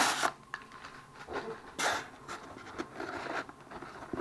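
Packing paper rustling and crinkling in short bursts as a wrapped bag is handled and lifted out of a styrofoam-lined shipping box.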